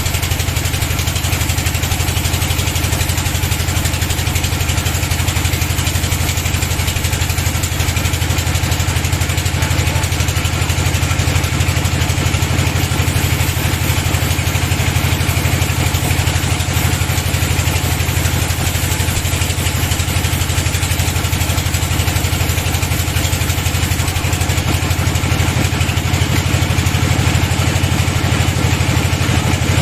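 Sawmill bandsaw machine running steadily, a constant low engine drone that does not change.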